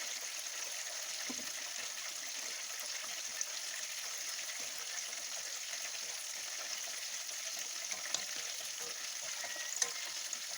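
Beaten egg and shrimp frying in hot oil in a pan, a steady sizzle, with a couple of light clicks near the end.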